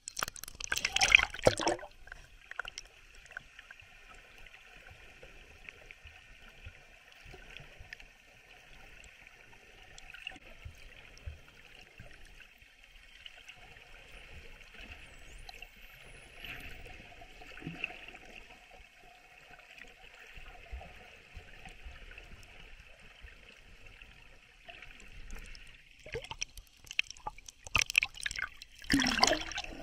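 Water splashing as a handheld camera plunges under the surface, then a steady muffled underwater hiss, and splashing again near the end as the camera breaks back out of the water.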